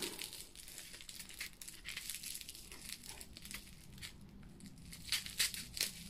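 Plastic wrapping crinkling faintly as a small wrapped package is cut open with scissors and handled, with a few sharper crinkles near the end.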